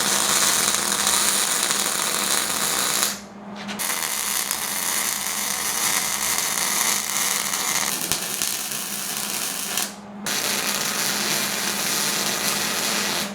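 Arc welding a bead around the joints of steel rectangular-tubing legs: a steady, loud crackling sizzle that stops briefly twice, about three seconds in and again about ten seconds in, as the arc is broken and restarted.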